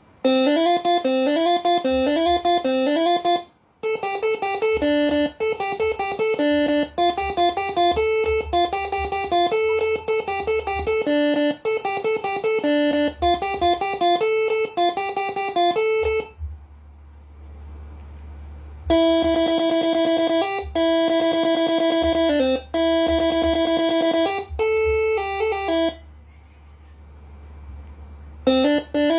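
Moreno MS5 six-trumpet telolet basuri melody air horn playing tunes. The first half is quick stepping runs of notes; after a pause past the middle come long held chords in a series of blasts. A steady low hum sits underneath.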